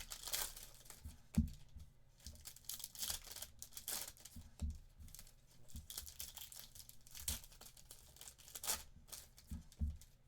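Trading card packaging being torn open and crinkled in several bursts, with soft knocks of the cards and box being handled.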